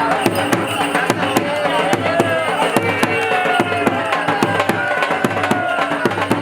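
Festival music with fast hand drumming and a gliding melody over a steady low drone.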